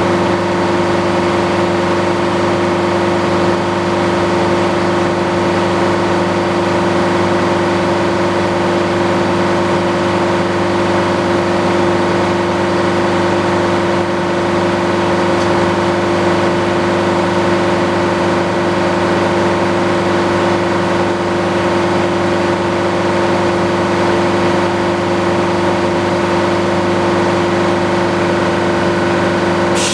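Circular sawmill running steadily: the engine and spinning blade hold one constant pitch throughout, with no rise or fall in load.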